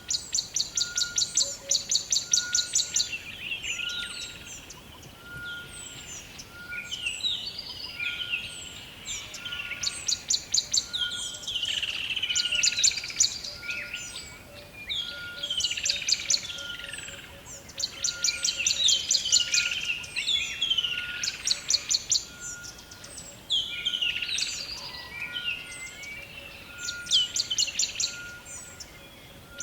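Several songbirds singing: quick, very high trills that come back every couple of seconds, mixed with lower falling whistled phrases. A faint short note repeats steadily about once a second underneath.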